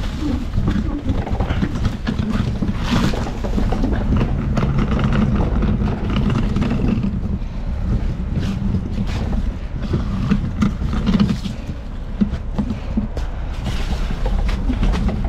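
Front-load garbage truck engine running under load, its pitch shifting as the truck works to pull a dumpster out through heavy snow, with scattered knocks and clanks.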